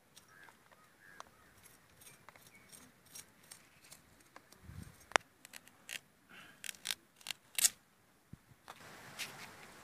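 Steel spoon scraping seeds and pulp out of cut pumpkin slices, with a run of sharp clicks and taps as the spoon knocks against the rind and seeds drop. Near the end the clicking stops and a steady faint hiss takes over.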